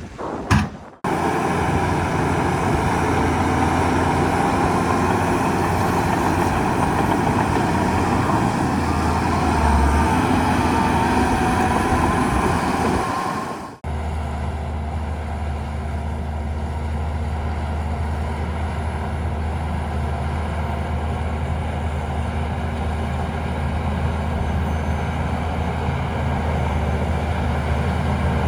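Heavy diesel engine of earthmoving machinery running steadily under work. About halfway through the sound changes abruptly to a lower, steadier engine hum.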